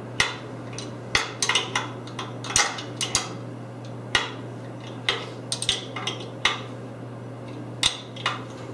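Steel wrench clinking on a bolt and nut as the nut is tightened down to lock the bolt against a steel mobile-base frame: about a dozen sharp metallic clicks at uneven intervals.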